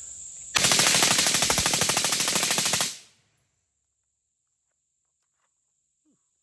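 AR-15-pattern rifle with a Hoffman trigger kicker, carbine gas and buffer, firing one rapid unbroken string of shots at about nine to ten a second as the magazine is let rip. The string lasts a little over two seconds and stops abruptly. Crickets chirp steadily before the first shot.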